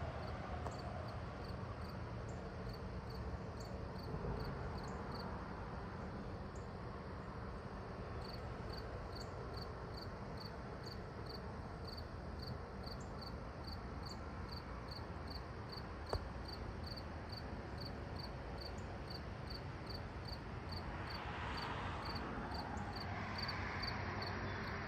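Crickets chirping in a steady high rhythm, about two chirps a second, with a short break early on, over a faint low background hum. Near the end a soft rushing sound swells up.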